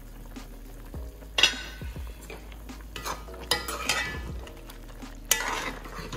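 Metal ladle stirring a thick oxtail stew in a large metal pot, scraping and knocking against the pot several times, with the wet sound of the stew being moved.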